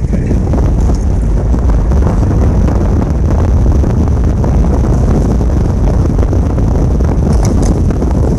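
Wind buffeting the microphone over the steady rumble of a vehicle moving along a road.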